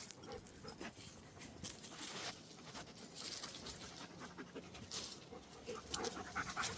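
Dogs panting during a pause in rough play, with faint irregular rustles and scuffs.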